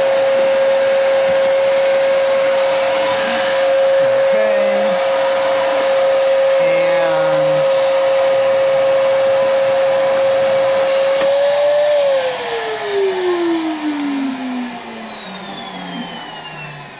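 Fantom upright vacuum cleaner running at a steady pitch with a high whine. About twelve seconds in it is switched off, and the motor's pitch falls steadily as it spins down.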